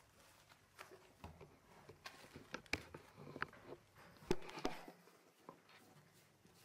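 Faint handling noises: paper towels rustling and scattered soft knocks as a hairless cat shifts about under a stroking hand, with one sharper knock about four seconds in.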